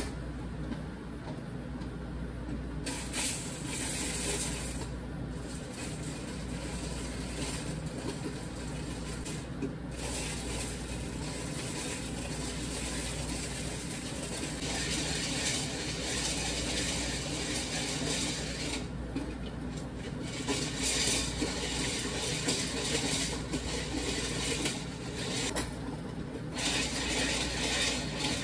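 Hand-cranked stovetop popcorn popper turning in a steel pot on an electric coil burner: a steady stirring rattle with a hiss that grows louder from about halfway through.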